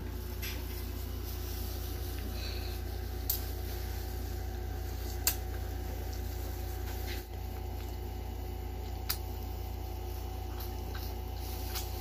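Steady low hum with a few short, sharp clicks scattered through, the small mouth and handling sounds of people eating durian.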